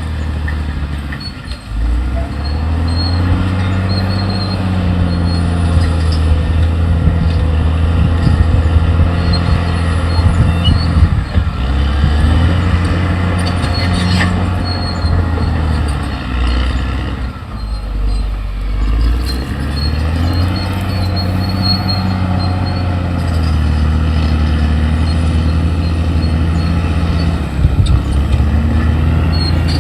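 Caterpillar D6R XL bulldozer's diesel engine working under load, its pitch dipping and recovering several times as the load changes, with some clatter.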